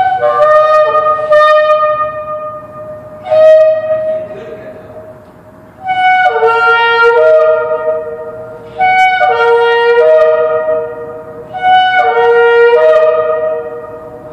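Two Yemenite shofars (ram's-horn trumpets) blown in five long blasts about every three seconds, each starting on a higher note and stepping down to a lower one. In the last three blasts both horns sound together on different notes, echoing in a concrete parking structure.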